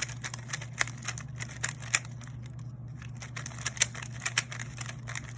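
3x3 speed cube, a GAN 356 Air M, being turned fast during a solve: a rapid, irregular run of plastic clicks and clacks as the layers snap round.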